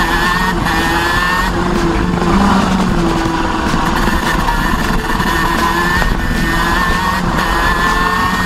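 Racing kart engine at full load, its pitch climbing steeply again and again as the kart accelerates and falling back briefly between the climbs, with wind rush on the onboard microphone.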